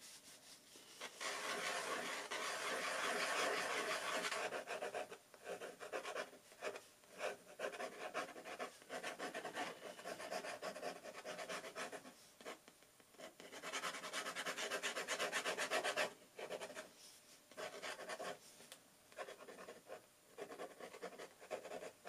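Fountain pen nib scratching across textured watercolor paper in quick sketching strokes: a few seconds of continuous scratching about a second in and again past the middle, short separate strokes in between.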